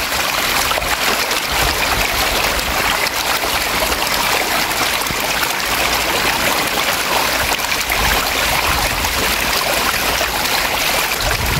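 A dense mass of walking catfish crowded in shallow water inside a net, thrashing and splashing all together: a steady churning splash with a fine crackle running through it.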